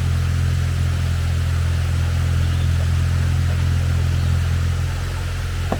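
Off-road 4x4's engine running at low, steady revs, a constant low hum, as the vehicle crawls down a rocky drop.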